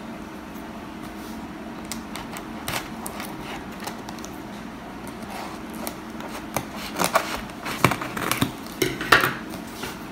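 Items being handled and unpacked from a box: scattered clicks, knocks and clatter, busier and louder in the second half, over a steady low hum.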